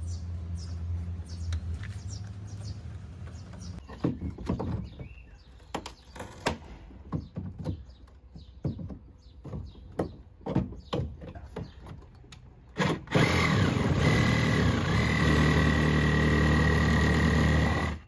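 Irregular knocks and clicks of hand tools working on the dinghy's wooden fittings and centreboard, then about thirteen seconds in a cordless reciprocating saw starts cutting into the boat's woodwork, running steadily with a high whine until it stops suddenly at the end. A low hum sits under the first few seconds.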